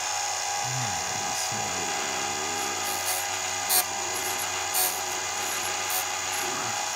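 Electric chainsaw-chain sharpener running with a steady motor whine. Its grinding wheel touches the chain's depth-gauge raker in several short, harsh grinding bursts, the loudest about four and five seconds in.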